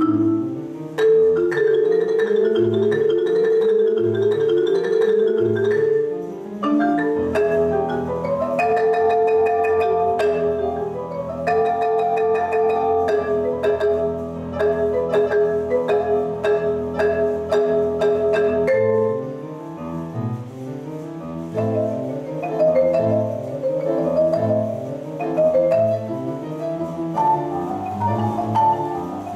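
Marimba played with mallets in fast runs of notes, with piano accompaniment. A stretch of longer held notes comes in the middle, then the quick runs return.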